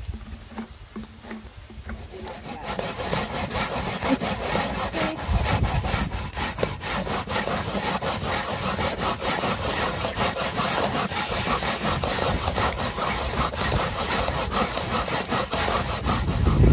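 Fresh coconut flesh being grated by hand on a metal box grater into a metal bowl: rapid, steady rasping strokes that start about two and a half seconds in.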